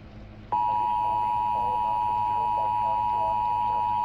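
Emergency Alert System attention tone: a steady, continuous electronic beep that starts about half a second in. Faint programme speech runs underneath it. It signals that a warning message is about to be read.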